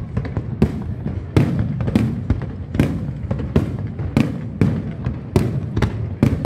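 Aerial firework shells bursting in quick succession, about two sharp bangs a second, each trailing off in a low rumble.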